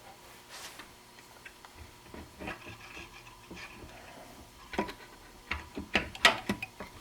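Light metal clicks and taps as a Ford C6 transmission's valve body is set in place and its levers engaged. The clicks are sparse at first and come in a quick cluster in the last two seconds.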